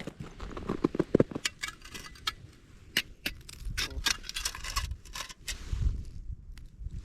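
Small hard objects being handled: a quick run of clinks, clicks and scrapes, like camping gear knocking together, with a few soft low thuds among them.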